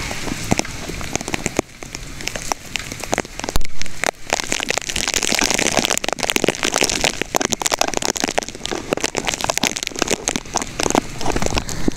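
Rain falling steadily, with a dense crackle of drops hitting close by. There is one loud thump about three and a half seconds in.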